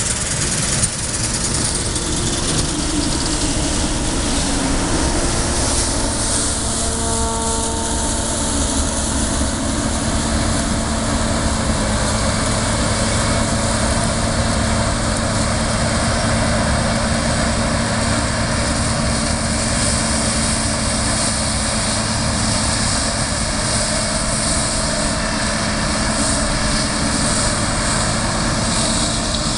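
CLAAS combine harvester running steadily while harvesting rapeseed: a continuous engine hum under the noise of the header and threshing machinery.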